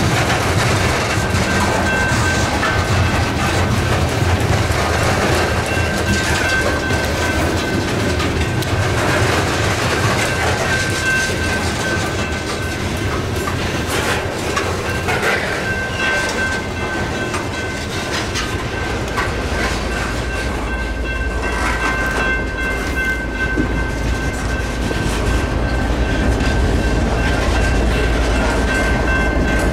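A BNSF train rolling past, its wheels clicking over the rail joints in a continuous rumble. A deeper, heavier rumble builds about two-thirds of the way through.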